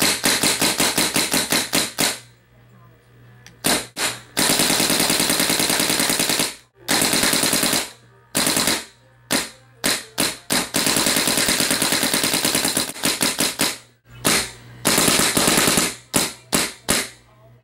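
An '05 Timmy electronic paintball marker firing reballs (reusable rubber paintballs) in rapid strings of shots. Long fast strings alternate with short bursts and gaps, with a run of about half a dozen single shots a little past the middle.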